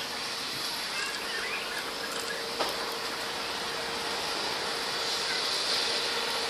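Diesel railcar train approaching slowly at a distance: a steady engine hum over outdoor background noise, growing slightly louder. A few faint bird chirps come about a second in.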